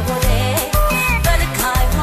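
Background music: an upbeat song with a steady drum beat and a strong bass line.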